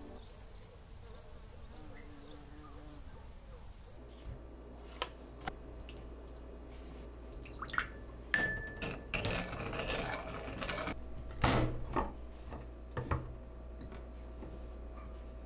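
Kitchen sounds over a steady low hum: light clinks and taps of utensils on glassware while a sauce is measured and mixed in a glass bowl, a few seconds of pouring or stirring noise, and two heavier knocks near the end.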